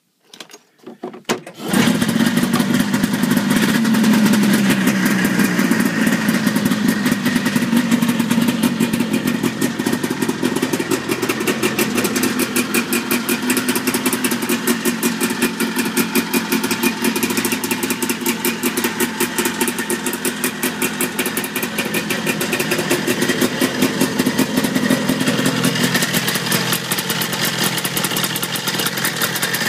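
1980 Arctic Cat Panther snowmobile's 440 two-stroke twin being pull-started on its new VM carburetor. It coughs a few times and catches on the first pull about a second and a half in, then runs at a steady idle.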